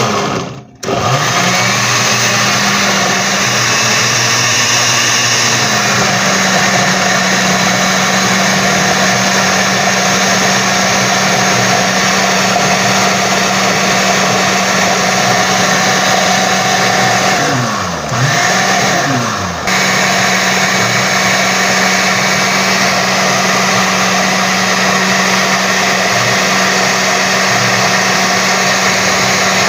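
Countertop blender with a plastic jar blending avocado, tomato, onion and serrano chiles with only a little water into a thick salsa. The motor starts about a second in, climbs to speed over a few seconds and runs steadily; about two-thirds of the way through it winds down and back up, then runs steadily again.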